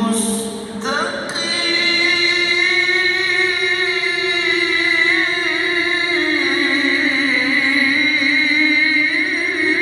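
Melodic Quran recitation by a male qari, with long sustained phrases ornamented with wavering pitch turns. A short breathy break comes under a second in before the next long held phrase.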